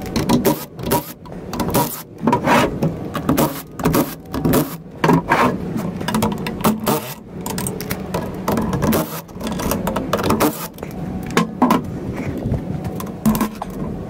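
Irregular clanks, knocks and scrapes of hand tools and metal parts on a metal workbench as a Honda Civic manual transmission case is being taken apart.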